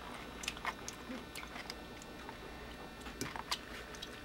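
A person biting into and chewing a garlic pickle that has just been cooked by mains current run through it: a scattered series of quiet, sharp mouth clicks and crunches, close to the microphone.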